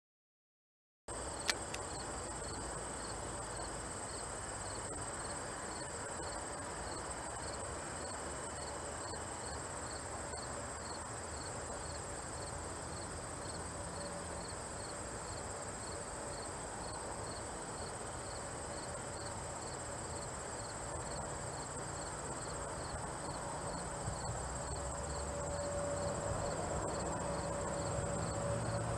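Steady insect chorus, a high buzz with a regular chirp. Over the last several seconds the CRJ-200 regional jet's rear-mounted GE CF34 turbofans grow louder on approach, a low rumble with a steady whine.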